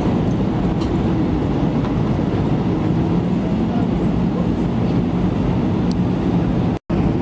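Steady cabin noise inside an Airbus A320 on approach: engine and airflow noise heard from a window seat, with a faint low hum. The sound cuts out for a split second near the end.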